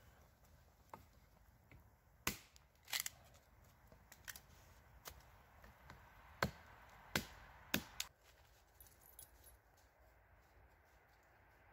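Small hatchet chopping a stick of wood held against a log: about eight sharp, uneven blows over some six seconds, the loudest in the middle stretch, then quiet.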